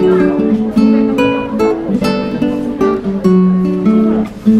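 Background instrumental music of plucked guitar notes and strummed chords in a light, steady melody.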